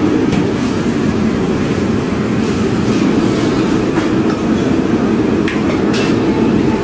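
Steady roar of a commercial gas wok range and its extraction hood, with a few sharp metal clanks as a large wok is tossed and scraped with a ladle.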